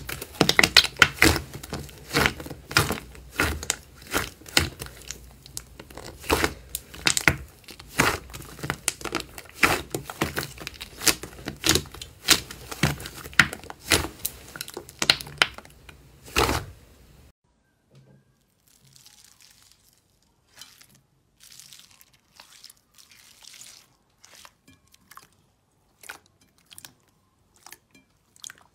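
Slime being squished and pressed, with a dense run of crackling and popping. About seventeen seconds in it cuts to a much quieter stretch of sparse, soft clicks and squishes.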